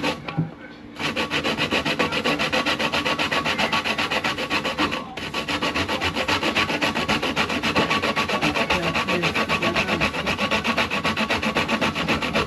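Whole nutmeg being grated on a stainless steel box grater: quick, evenly repeated scraping strokes, about four a second, starting about a second in with a brief pause about five seconds in.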